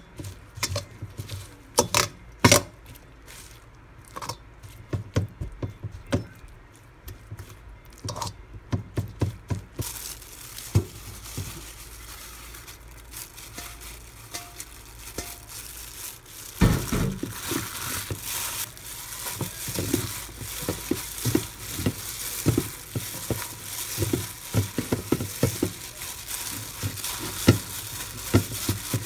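A metal spoon clicking and scraping against an embossed stainless steel mixing bowl while stirring red kimchi seasoning paste. From about halfway through, hands rustle and toss a bundle of green onions through the paste in the bowl, a steady rustling with many small clicks that gets louder.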